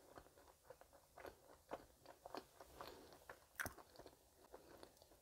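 A person chewing a soft cream-filled streusel bread with a chewy rice-cake centre, close to the microphone: faint, scattered mouth clicks and smacks, the strongest about three and a half seconds in.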